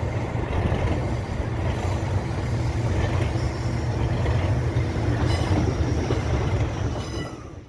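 Class 37 diesel locomotive's English Electric V12 engine working hard under power: a loud, steady, deep throb, with a faint high-pitched squeal over it in the second half. It drops away and cuts off at the very end.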